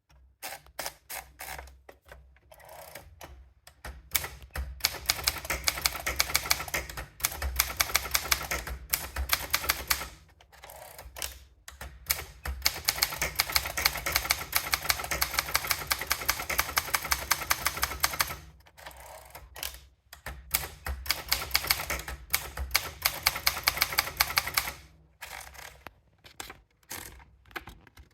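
Optima Elite typewriter being typed on: long runs of rapid key strikes, broken by short pauses, with slower scattered strokes near the end.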